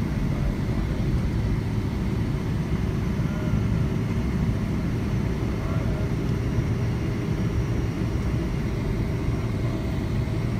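Boeing 777-300ER cabin noise from a window seat over the wing: the GE90 engine and airflow give a steady low rumble as the airliner taxis after landing.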